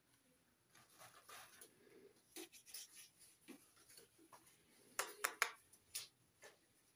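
Hands handling bars of soap and their cardboard boxes: faint rubbing and light taps, with a short run of sharp clicks about five seconds in as two bars are pressed together.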